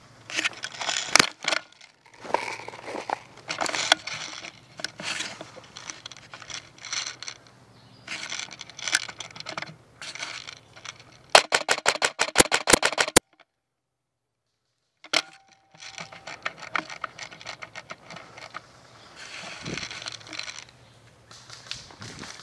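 Brush and dry leaves rustling and crackling as a player moves through thick undergrowth. A little past the middle an airsoft gun fires a rapid burst, about ten shots a second for nearly two seconds, then the sound drops out completely for about a second and a half.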